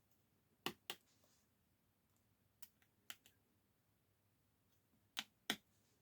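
Sharp small clicks of parts being handled and pressed into place inside an opened Samsung tablet during reassembly. There is a pair about a second in, a few lighter clicks in the middle, and another pair near the end.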